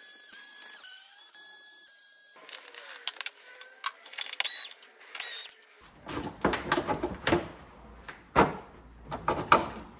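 Small cordless electric screwdriver whining steadily as it backs out a T25 Torx body panel screw, stopping about two and a half seconds in. After that come scattered clicks, then sharp knocks and clatter from the motorcycle's plastic body panels being worked loose and handled.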